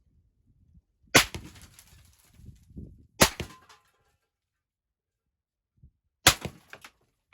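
Three 7.62×54R Mosin Nagant rifle shots, each a sharp crack with a short echoing tail, spaced about two and three seconds apart. They are heard from the target end, about 100 yards downrange from the rifle.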